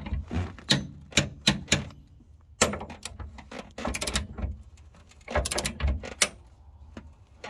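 Torque wrench ratcheting while tightening the hitch's mounting bolts: a run of sharp metallic clicks, irregularly spaced, some in quick clusters.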